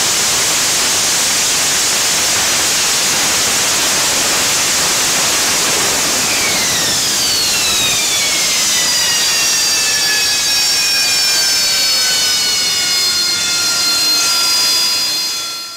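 AV-8B Harrier II jump jet's Pegasus turbofan running loud as it hovers and sets down vertically on deck. From about halfway, several whining tones slide steadily down in pitch as the engine throttles back after landing, and the sound fades away at the very end.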